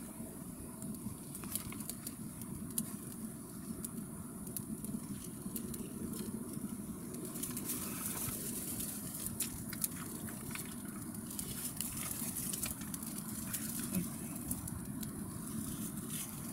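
Small kindling fire catching in bark and feather-stick shavings, crackling with scattered sharp pops that come a little more often in the second half, over a steady low rumble.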